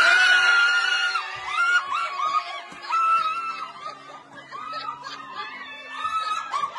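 A woman screams with excitement: one long high scream at the start, held about a second, then a run of shorter squeals and shrieks mixed with laughter.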